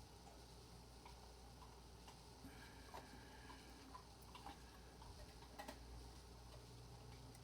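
Faint, scattered small metallic clicks and ticks of lock parts and tools being handled while a lock is taken apart, over a low background hum.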